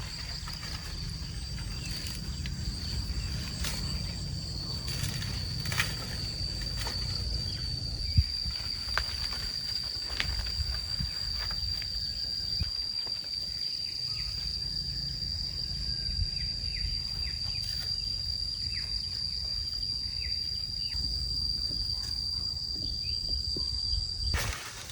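Insects droning in one steady, high, fluttering note, over a low rumble and a few scattered clicks; it all cuts off abruptly near the end.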